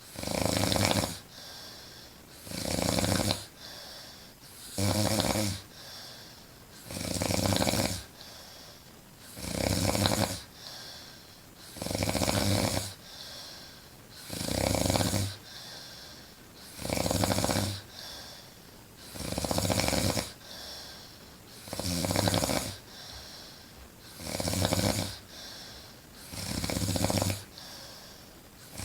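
A woman snoring loudly in her sleep, a steady rhythm of about a dozen snores, one every two and a half seconds or so, each lasting about a second, with quiet breathing between.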